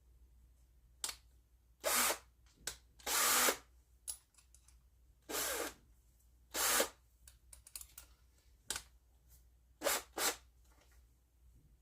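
Power drill with a 1/4-inch bit boring peg holes into a pine dulcimer peg head, run in short bursts of about half a second, some seven times, with pauses between.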